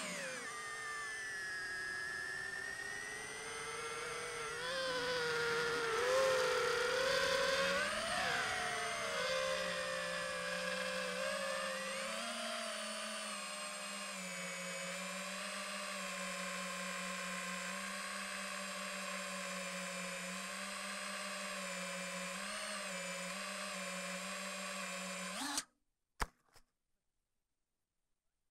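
FPV quadcopter's brushless motors and propellers whining, the pitch rising and falling with the throttle. The whine cuts off abruptly near the end as the drone sets down in the grass, followed by a couple of short knocks.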